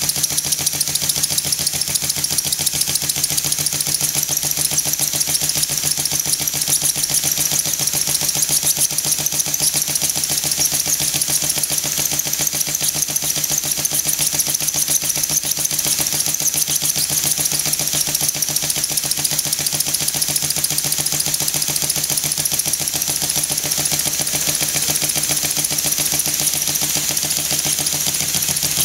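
Stuart S50 single-cylinder model horizontal mill engine running steadily on compressed air at about 5 psi, with rapid, even exhaust beats over a steady hiss.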